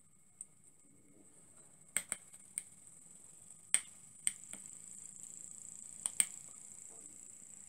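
Small metal steam-engine boilers heating over their burners: sharp metallic pings and ticks at irregular intervals, about eight in all, over a faint steady hiss that builds slightly about a second and a half in.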